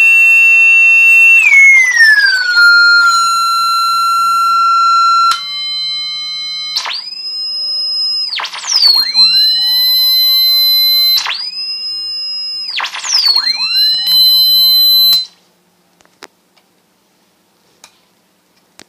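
Loudspeaker driven by a homemade 4046 phase-locked-loop and inverter-bridge circuit, sounding a loud electronic tone with many overtones. The pitch glides down as the frequency is adjusted, then jumps between pitches several times, each jump swooping and settling onto a steady pitch, and the tone cuts off suddenly about 15 seconds in; a few faint clicks follow.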